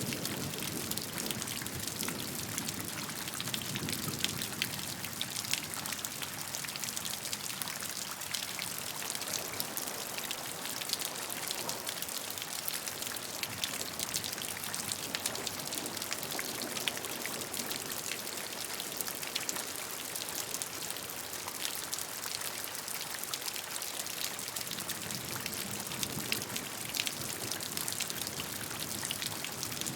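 Steady rain falling, a dense even hiss of many small drops striking a surface, with a low rumble that swells and fades early and again near the end.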